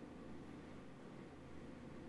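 Near silence: faint steady hiss and low hum of room tone.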